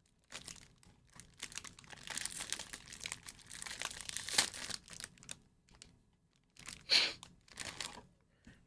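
Wrapper of a pack of McVitie's digestive biscuits being crinkled and torn open by hand, an irregular crackle, with a couple of louder short rustles near the end as a biscuit is pulled out.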